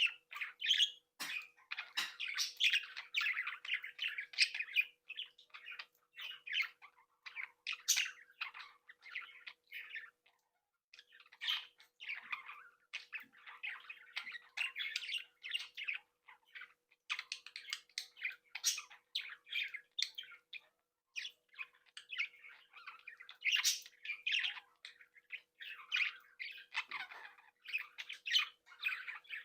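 A flock of budgerigars chattering, chirping and squawking with many overlapping calls, with a brief pause about a third of the way through.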